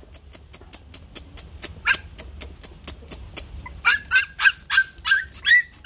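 Bắc Hà xù puppies yapping in short, high-pitched, squeaky yelps: one about two seconds in, then a quick string of them near the end. A rapid run of light clicks goes on underneath.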